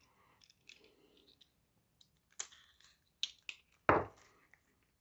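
Faint handling sounds of a shrink-wrapped pack of game cards being picked up: scattered light clicks and taps, with a single thump just before four seconds in.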